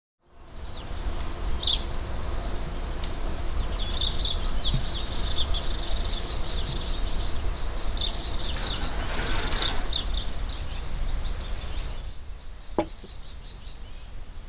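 Birds chirping in short rapid calls over a low steady outdoor rumble. Near the end the ambience drops and there is a single sharp click.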